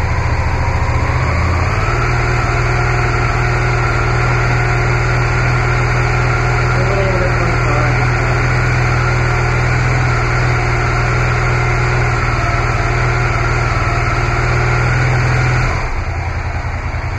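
2005 Suzuki SV650S's 645 cc V-twin engine idling steadily, run for a minute after an oil change to circulate the fresh oil. Its pitch steps up about two seconds in, holds, and drops back near the end.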